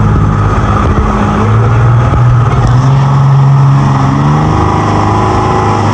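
Engine of a speedboat towing a banana boat, running hard at speed; its pitch rises about a second and a half in and eases off near the end, over a steady rush of wind and water.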